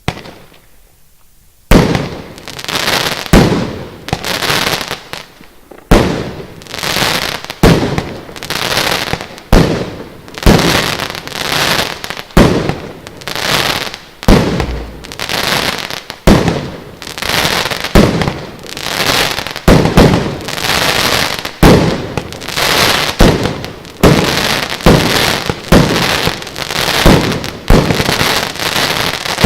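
Compound fireworks battery with 30 mm shots firing in sequence, starting about two seconds in. Each shot is a sharp burst about once a second, followed by a delayed crackling tail.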